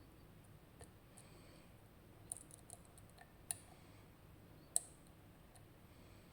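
Faint, sharp metallic clicks of a lock pick and tension tool working the pins inside a RUKO Garant high-security cylinder: a small cluster a little over two seconds in, then two single sharper clicks, the louder one near the end.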